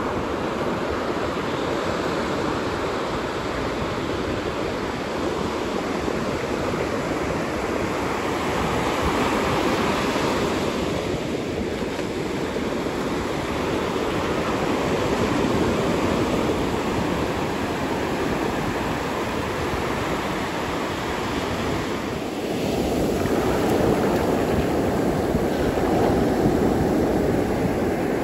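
Ocean surf breaking and washing onto a beach: a steady rush of noise that swells and eases, loudest near the end.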